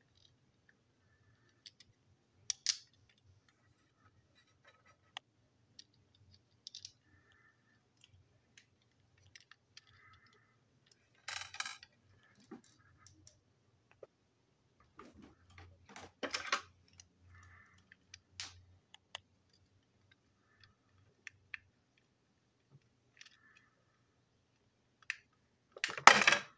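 Scattered clicks and small knocks of a plastic toy train engine and its parts being handled and taken apart with a screwdriver, with a louder clatter near the end.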